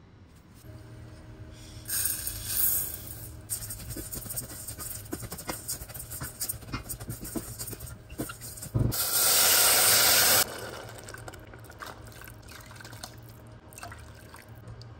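Rice toasting in a hot stainless steel pot, scraped and stirred with a spatula, the grains crackling and clicking. About nine seconds in, water poured into the hot pot hisses loudly for about a second and a half, then the pouring goes on more quietly.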